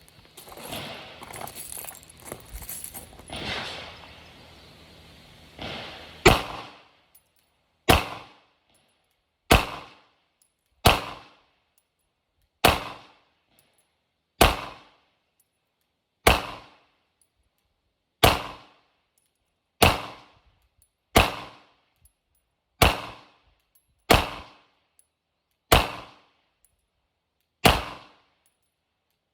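Rustling and handling noise for the first few seconds, then slow, steady single shots from a Glock 19 9mm pistol, about fourteen of them, one every one and a half to two seconds. Each shot is a sharp crack with a short ringing tail.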